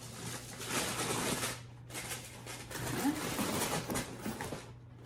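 Packaging rustling and crinkling as a pair of boots is unwrapped and handled, in two stretches with a short pause between them.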